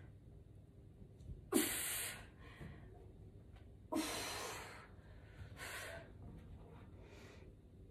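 A woman's heavy breathing from exertion: two loud, sharp exhales about two and a half seconds apart, then fainter breaths.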